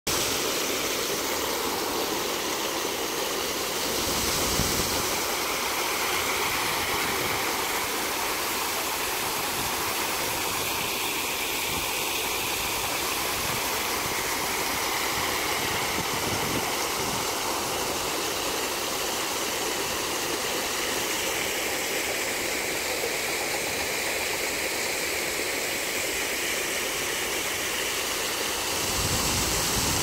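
Walk-through arch fountain, rows of water jets spraying across a walkway and splashing down onto the wet deck and into the lake: a steady rush of falling water.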